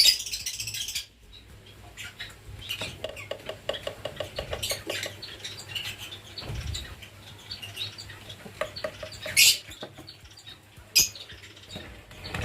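Lovebirds chirping, with light scratching and pattering and a few sharp clicks. There is a shrill burst in the first second and two short sharp sounds near the end.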